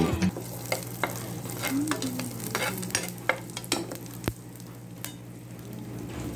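Sliced garlic frying in hot used oil in a pan, sizzling steadily with scattered small pops and clicks. A steady low hum runs underneath.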